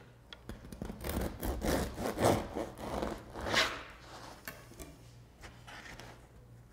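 Serrated bread knife sawing through an oat-crusted sourdough loaf on a wooden cutting board: several back-and-forth strokes, fading out about four seconds in.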